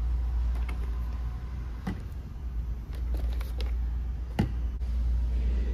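Light clicks and knocks of hard plastic pails and a plastic milk bottle being handled and set down on a tabletop, the sharpest about four seconds in, over a steady low background hum.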